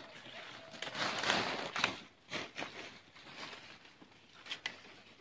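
Leafy branches rustling and stems snapping as kali kadep leaves are picked by hand. There is a longer spell of rustling about a second in and a few short, sharp snaps.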